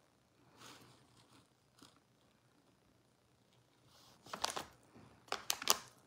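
Near silence for about four seconds, then a quick run of short, faint clicks and rustles near the end.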